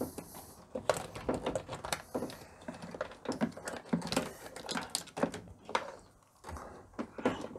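Irregular light clicks, taps and rustling as multimeter test probes and their leads are drawn out of a dishwasher's drying-fan connector and handled against the plastic base and wiring.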